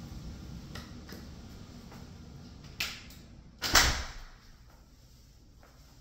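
A door shutting: a sharp knock, then a second, louder thud with a short ring, after which the low background rumble drops away.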